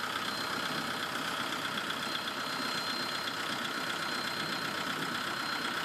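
Steam-driven derrick car's hoisting engine running steadily with a fast, even rhythm as it works the hook and snatch block.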